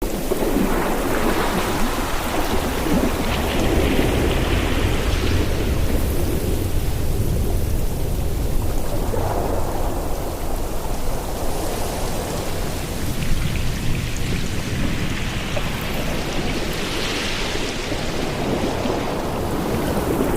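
Ocean waves washing in, swelling and falling back every few seconds, over a steady low rumble of wind.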